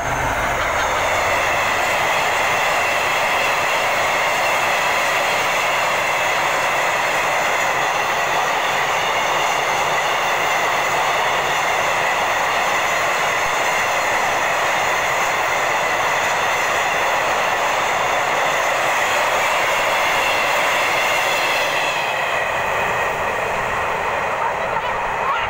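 Freight train of tank wagons passing close by: steady loud rush of steel wheels on rail, with a few high steady tones ringing through it. It fades a little near the end as the train draws away.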